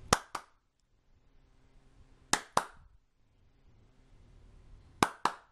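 Hand claps in pairs, two quick sharp claps three times over, about two and a half seconds apart. Each double clap is the signal that switches an Arduino sound-sensor clap switch, turning the lamp on or off through its relay.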